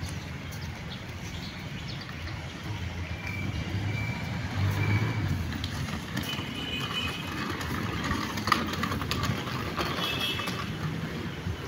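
Street traffic noise: a steady low rumble of passing vehicles, with a few short high-pitched tones and one sharp click about eight and a half seconds in.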